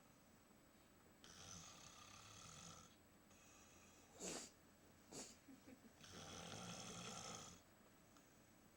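Faint, slow snoring: two long breaths a few seconds apart, with two short, sharp snorts between them.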